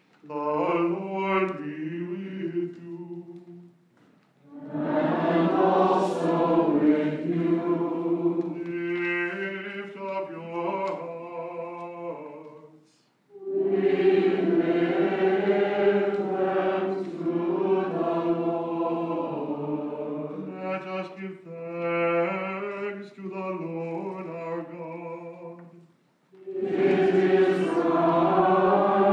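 Choir singing a chanted liturgical setting in several phrases, with short pauses between them.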